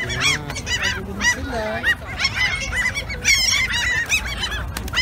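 A flock of gulls calling, many short squawks overlapping one another, with a rapid run of calls a little after three seconds in.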